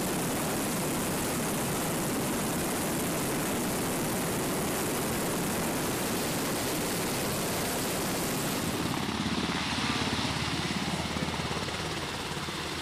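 UH-60 Black Hawk helicopter with its rotor turning and its turboshaft engines running: a steady rush of rotor and engine noise. About nine seconds in the high hiss drops away and a pulsing rotor beat comes through.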